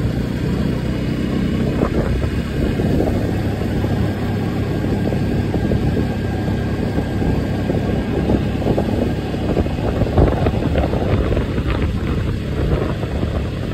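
Motorcycle on the move: a steady, dense rumble of wind rushing over the microphone, with the engine running under it.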